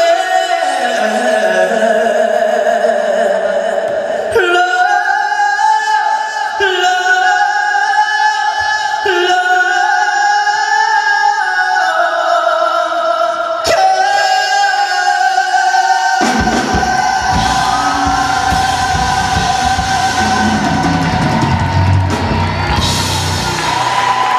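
A male pop singer performing live, holding long, bending vocal notes over the band in a large hall. About sixteen seconds in, a fuller accompaniment with deep bass joins.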